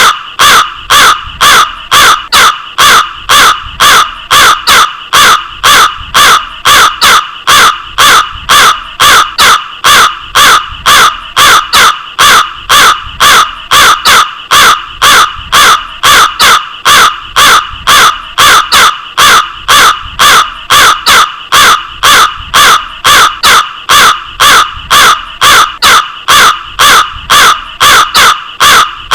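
Crow cawing over and over: short, loud caws repeating at a steady rate of about two a second.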